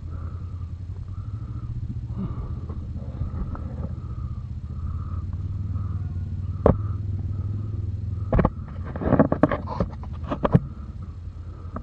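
ATV engine idling steadily. One sharp click comes a little before seven seconds in, then a run of sharp knocks and rattles between about eight and ten and a half seconds.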